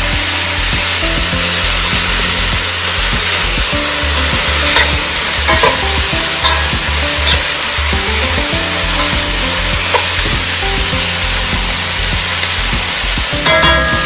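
Shredded cabbage and saltfish frying in a metal pot, sizzling steadily as a metal spoon stirs them. Scattered clinks of the spoon against the pot, with a quick cluster of clinks near the end.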